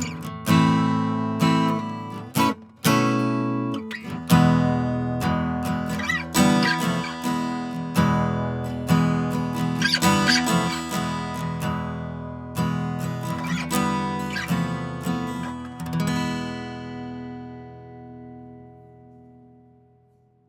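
Gibson J-45 Standard steel-string acoustic guitar played, strummed chords with picked notes and a couple of quick muted stops. A final chord rings out and fades away over about four seconds.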